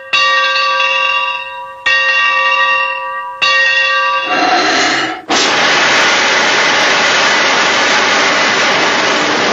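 A bell struck three times, each stroke ringing and dying away. From about five seconds in, a loud steady hiss like escaping steam runs on.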